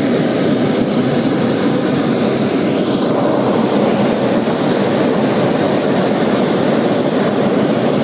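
Hot air balloon's propane burner firing in one long, steady blast of loud rushing noise, heating the envelope for lift.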